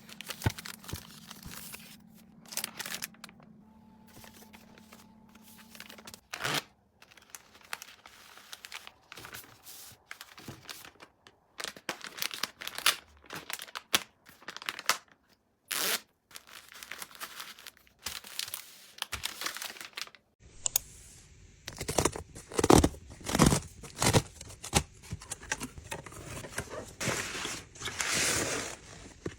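Packaging crinkling and tearing, with short clicks and knocks of items being handled. A low hum sits under the first six seconds, and about twenty seconds in the sound changes abruptly to a brighter, busier stretch of crinkling.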